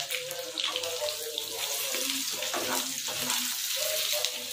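Potatoes, tomatoes and green chillies sizzling in hot oil in a kadai, with a wooden spatula stirring and scraping through them.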